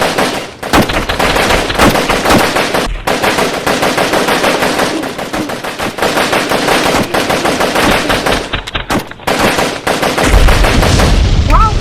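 Rapid automatic gunfire, a near-continuous rattle of shots with short breaks about three seconds in and about nine seconds in. Near the end a deep rumble joins it.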